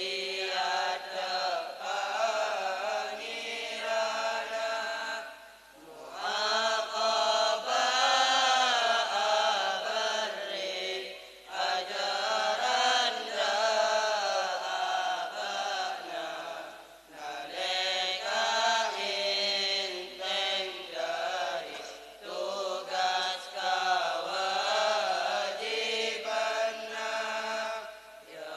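A group of boys chanting Madurese syi'iran verse together in a sung, melodic recitation, in phrases of about five to six seconds with short breath pauses between them.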